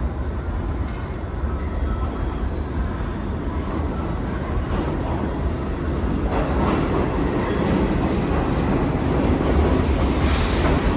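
New York City subway train running on the tracks, a steady rumble that grows louder about halfway through.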